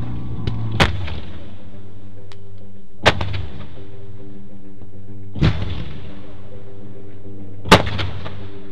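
Fireworks going off: four sharp bangs evenly spaced about two seconds apart, each with a short echoing tail, over steady music playing underneath.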